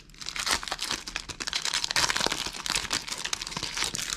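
Foil trading-card booster pack wrapper crinkling and tearing as fingers peel it open: a dense, continuous run of crackles.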